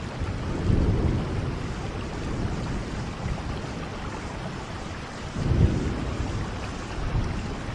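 Steady heavy rain with low rumbles of thunder, one about a second in and a louder one a little after five seconds.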